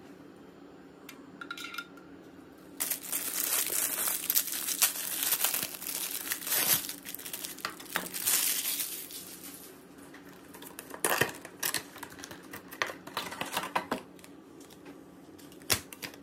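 Thin plastic bags and sleeves crinkling and rustling as new items are unwrapped by hand: a long stretch of continuous rustling, then a few shorter bursts of crackling.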